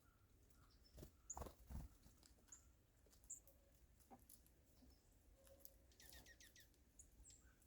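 Faint chirps of small birds at a seed feeder, with scattered light taps and clicks, a cluster of louder taps about a second in, and a quick run of about five high notes near the end.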